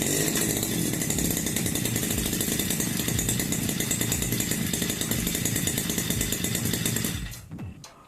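Small two-stroke engine of a Taneka BG 328 brush cutter, cold after standing unused for a long time, running loud and steady at high revs for about seven seconds, then falling away near the end.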